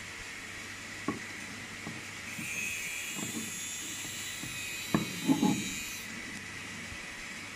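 Light clicks and knocks of a piston ring being handled and fitted onto a piston: one click about a second in, and a louder cluster of knocks about five seconds in. Between them comes a faint high scraping hiss. A steady background hiss runs underneath.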